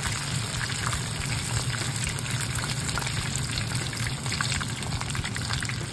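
Hot oil sizzling steadily around chicken gizzard karaage in a frying pan during their second, hotter fry at about 200 °C, a dense patter of small crackles over a constant hiss. A low steady hum runs underneath.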